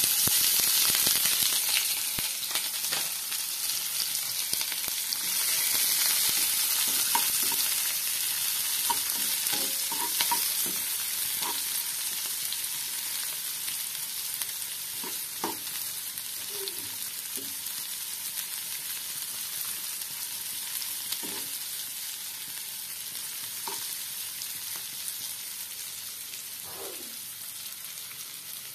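Chopped shallots, chillies and garlic sizzling in hot oil in a non-stick wok as they are sautéed, stirred with a spatula that clicks and scrapes now and then. The sizzle starts suddenly as the vegetables go in and slowly dies down.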